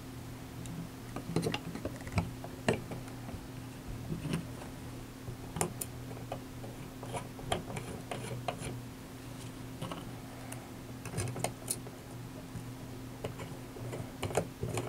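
Scattered small clicks and taps of hard plastic and metal parts being handled as standoff legs are fitted to a Corsair Dominator Airflow memory fan housing and their screws hand-tightened. A faint steady low hum runs underneath.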